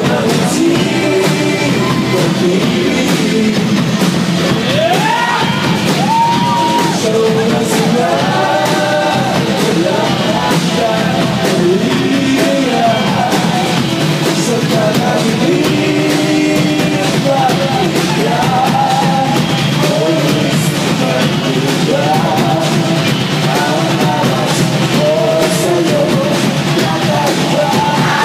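Live rock band playing loudly, with a singing voice carrying a gliding melody over drums, cymbal hits and keyboards, heard from the audience.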